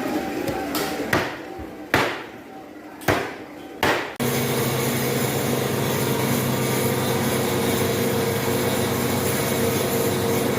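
About five heavy chopping strikes on goat head, a second or less apart. About four seconds in they cut off abruptly and give way to a steady, even hum.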